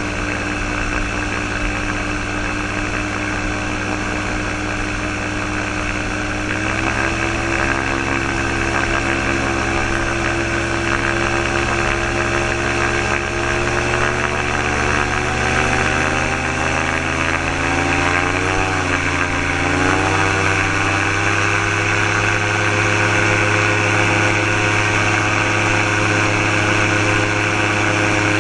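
Gyrocopter's Subaru EA-81 flat-four engine driving a pusher propeller through a reduction gearbox, running at low power on the ground. The engine speed steps up about a third of the way in, climbs gently after that, wavers briefly, and steps up again about two-thirds through.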